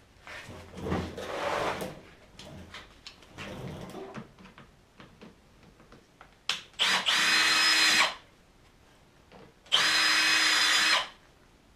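A drill spinning a stud sharpening tool against a snowmobile track's steel studs in two runs of about a second and a half each, a steady whine that starts and stops abruptly; each run puts a new point on a stud. Before that, rustling of gloves and tool handling.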